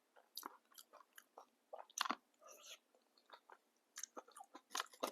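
Close-miked chewing of papdi chaat: crisp fried papdi wafers crunching between the teeth among soft, wet bites of the chutney-soaked topping. The crunches come irregularly, the loudest about two seconds in and again near the end.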